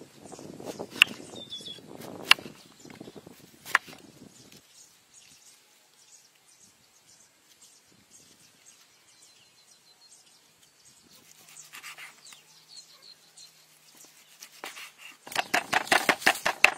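Kitchen knife slicing through bitter melon onto a wooden chopping board, with three sharp cuts in the first four seconds. A spoon then faintly scrapes the seeds out of a melon ring. Near the end comes rapid knife chopping of raw pork on the board, about six strikes a second and louder than the rest.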